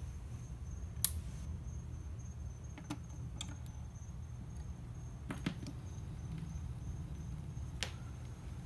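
Record player with a vinyl LP on the platter: a steady low hum with scattered clicks and pops, the sharpest about a second in, from the tonearm being handled and the stylus riding the record before any music starts.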